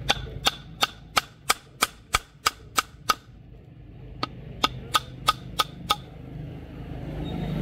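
A run of sharp, evenly spaced knocks, about three a second: about ten, a pause of about a second, then six more.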